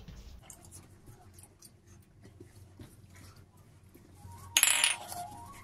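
Quiet eating sounds: hands working biryani rice on plates, light clicks, and chewing. About four and a half seconds in there is a short, loud, noisy burst lasting about half a second.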